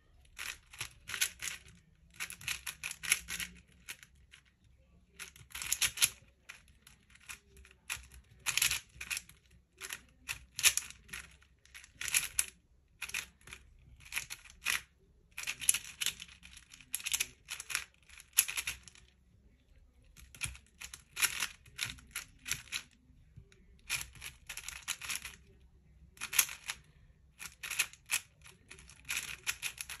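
A plastic 4x4 speedcube being turned fast during a solve: quick runs of clicking, rasping layer turns in bursts, with short pauses between them.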